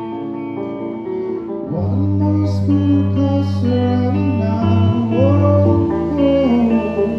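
A band playing the song live, guitar chords to the fore with singing over them. The low end fills out and the music gets louder about two seconds in.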